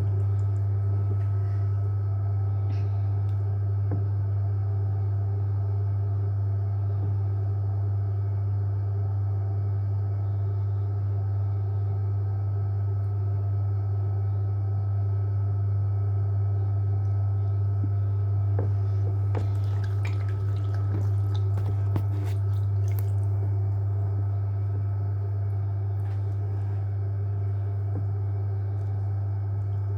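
JW Ratcliffe electric pottery wheel running with a steady low hum while clay is thrown on it. About two-thirds of the way through comes a few seconds of wet squishing and clicking from hands and water on the spinning clay.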